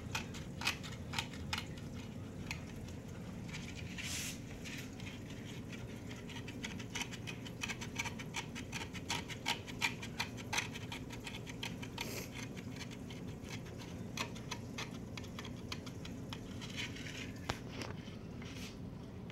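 Mag-Float magnetic aquarium cleaner with a razor blade scraping algae off the tank glass: a dense, irregular run of small scratchy ticks over a steady low hum.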